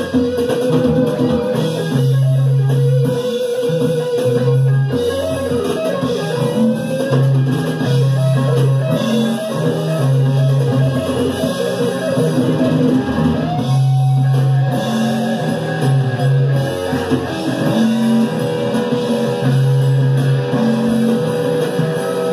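Live rock band playing an instrumental passage with no singing: electric guitar over a steady bass guitar line and drum kit, from a mixing-desk cassette recording.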